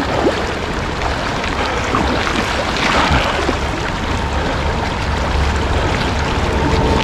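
Creek water rushing and splashing in the shallows, a steady noise with a louder splash about three seconds in.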